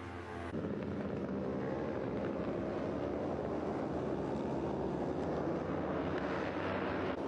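Racing motorcycle engines running on a circuit: a loud, dense, steady engine noise that sets in abruptly about half a second in, with a sudden break just before the end.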